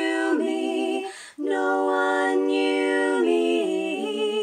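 A cappella three-part harmony sung by one woman's multitracked voice: two long held chords with a short break between them, the second stepping down in pitch near the end.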